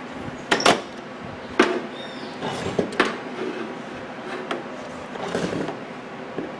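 A few sharp knocks and clicks from handling a Whirlpool microwave oven being set up to run, the loudest a little under a second in and others about a second and a half and three seconds in, with quieter rattling between.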